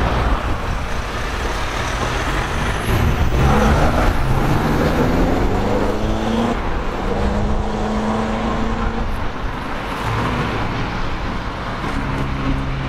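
Mitsubishi Pajero Sport 2.4 turbodiesel with a full aftermarket quiet-type exhaust pulling away and accelerating, its engine note rising in pitch several times as it goes up through the gears. Road traffic runs underneath.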